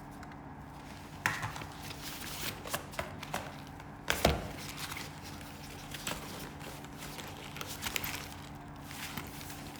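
Hands handling drone packaging during an unboxing: rustling and light clicks of cardboard and plastic, with one sharper knock about four seconds in.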